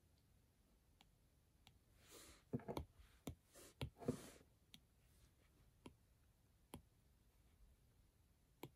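Faint, scattered taps on a tablet's touchscreen, about a dozen, with a busier, louder run of them in the middle.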